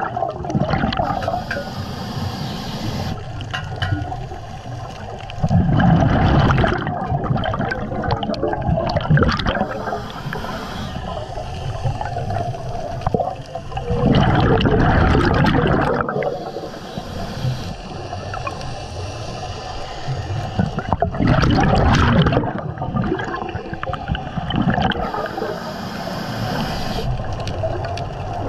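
Scuba diver breathing through a regulator underwater: a hissing inhale, then a loud bubbling gush of exhaled bubbles, repeating every several seconds.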